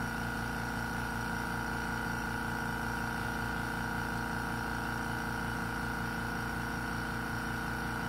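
Harbor Freight Fortress 1-gallon Ultra Quiet oil-free air compressor running steadily, a quiet, even hum with a fast regular pulse underneath as its pump fills a separate air tank.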